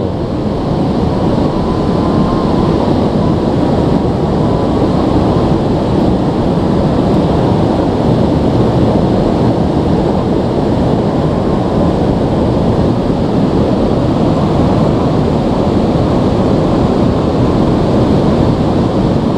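Steady rushing of a shallow, rocky river flowing over stones and rapids.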